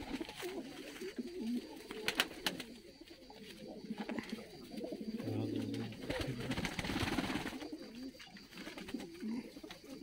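A loft full of domestic tumbler pigeons cooing, with low murmuring calls throughout and one longer, held coo a little past five seconds in. A few sharp knocks come around two seconds in, and a rustle near seven seconds.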